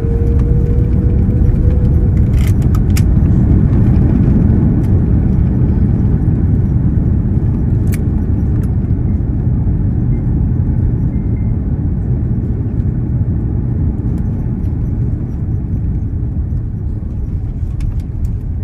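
Cabin noise of an Airbus A330-200 on its landing rollout: a loud, steady rumble of engines and wheels on the runway that gradually fades as the airliner slows. A few brief rattles come in the first several seconds.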